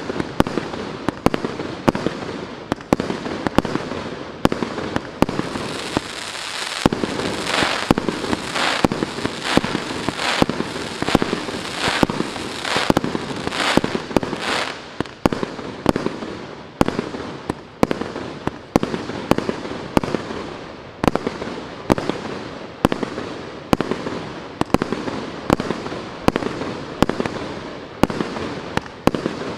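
Faseor Furious GWM6121 firework battery (cake) firing its tubes in a steady sequence, a sharp shot about every three-quarters of a second. The middle stretch is denser and hissier.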